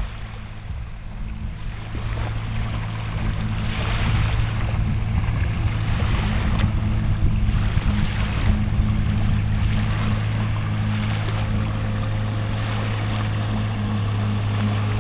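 1957 Evinrude outboard motor running steadily under way, its steady drone growing louder over the first few seconds and then holding even. A rush of water noise swells and fades every second or two beneath it.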